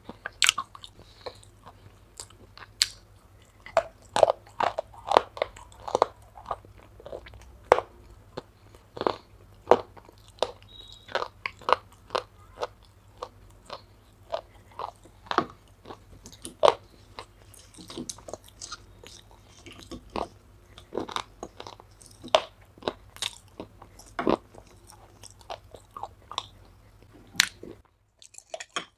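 Close-up biting and chewing of soaked gray clay: a run of sharp, irregular crunches, several a second, that stops shortly before the end.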